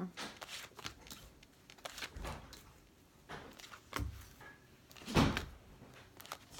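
Fortune-telling cards being handled on a table: scattered light taps and rustles, with a few dull thumps, the loudest about five seconds in.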